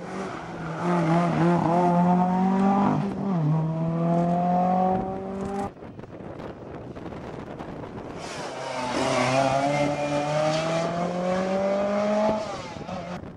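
Rally car engines heard in two separate passes, each revving hard as the car accelerates out of a hairpin, the pitch climbing steadily. The first pass dips briefly in pitch about three seconds in and cuts off abruptly just before six seconds. A second car's engine rises from about eight seconds and fades near the end.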